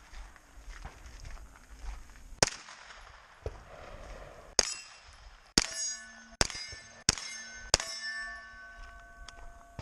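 About six shots from a Freedom Ordnance FX-9 9mm carbine, spaced under a second apart in the later string. Steel targets clang and ring on the hits, the ringing lasting a couple of seconds after the last shot.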